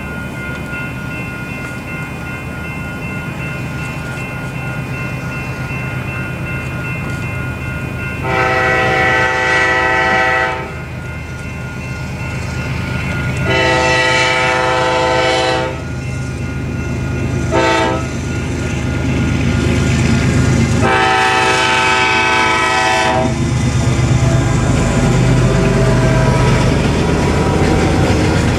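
Freight locomotive's air horn sounding the grade-crossing signal, long, long, short, long, over the steady ringing of the crossing bell. After the last blast the locomotive passes with a loud low rumble, and freight cars clatter over the rails.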